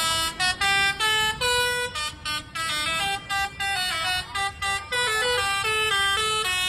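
Bus telolet horn, a multi-tone air horn, playing a quick tune of short bright notes at changing pitches with brief gaps between them; from about five seconds in it settles into a repeated two-note figure.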